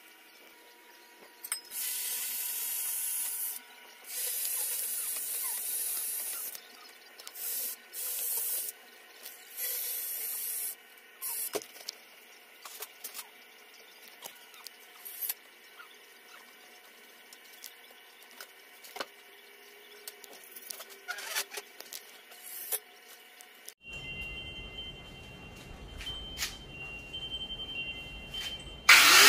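Several hissing bursts of one to two seconds each, mixed with light knocks. Near the end a corded handheld power tool switches on, its motor whining up to speed and then running steadily and loudly.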